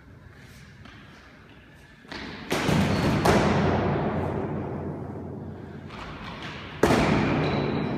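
Practice swords striking in sparring: a quick cluster of sharp knocks about two to three and a half seconds in, and one hard knock near the end. Each rings on in the long echo of the racquetball court.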